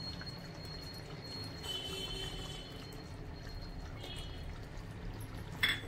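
Thick curry gravy simmering in a kadai, a low steady bubbling. A sharp clink comes near the end.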